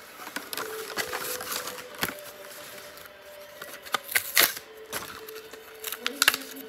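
Crinkling and tearing of plastic and card toy-car packaging being pulled open by hand: irregular sharp crackles, loudest a little past halfway and again near the end.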